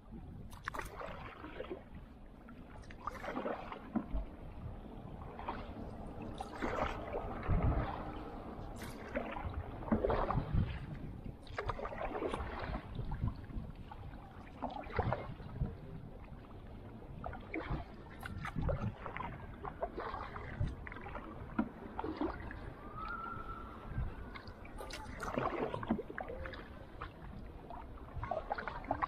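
Canoe paddles dipping and pulling through lake water in an uneven rhythm, each stroke a short splash over a steady low wash of water and moving air. A brief high thin tone sounds once, late on.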